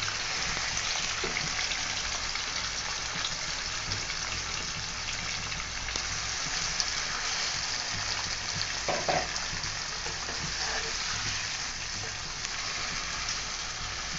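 Marinated beef sizzling steadily in hot oil with fried onions and whole spices in a frying pan, the first stage of browning the meat for biryani. A spatula stirs it, knocking against the pan a couple of times about nine seconds in.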